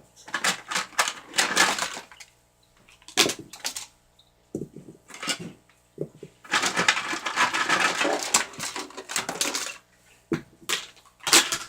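Toy train track pieces clattering and knocking as they are handled and rummaged through, in irregular bursts of clicks with two longer stretches of rattling.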